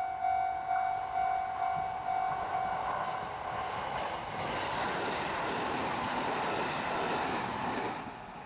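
Japanese level-crossing warning bell ringing at about two strikes a second, then a train passes over the crossing and its rushing rail noise covers the bell for about four seconds before dropping away near the end.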